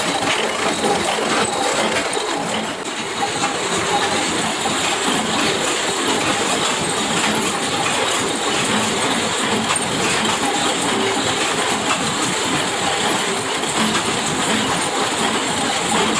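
Workshop machinery running steadily, with a continuous metallic clatter and clinking of small metal parts.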